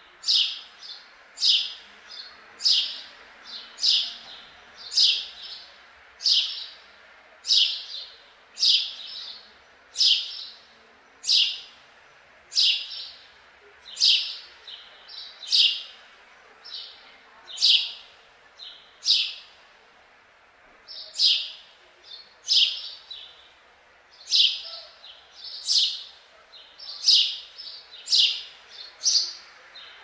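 House sparrow chirping: a steady series of short, high cheeps about once a second, with fainter chirps in between.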